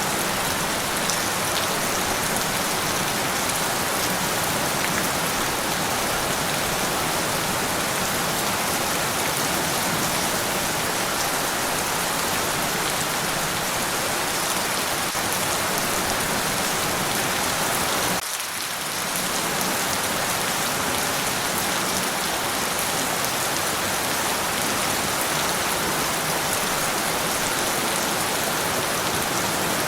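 Steady rain falling and pattering on a surface, a dense even hiss. It briefly thins and drops in level about two-thirds of the way through.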